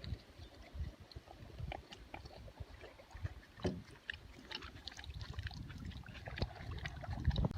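Canoe being paddled: the paddle dips and strokes in the water and water drips and trickles off it, with light scattered clicks, over a low rumble.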